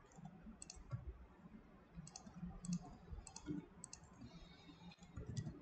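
Faint, scattered clicks of a computer keyboard and mouse, about a dozen of them at irregular intervals, as transform shortcuts are pressed and the mouse is clicked.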